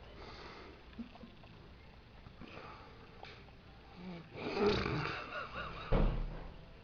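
A man snoring heavily while asleep. After about four seconds of quiet breathing, one long, loud, rasping snore ends abruptly in a short loud burst.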